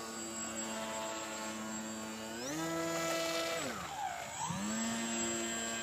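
Radio-controlled model airboat's motor and air propeller running with a steady whine. About two and a half seconds in the pitch rises as the throttle opens. Near four seconds the pitch falls away and wavers, then it settles back to a steady tone.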